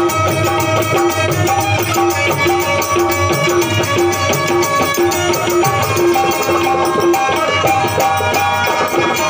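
Live instrumental passage: a harmonium holding sustained notes, with a quick, even hand-drum rhythm and hand-clapping.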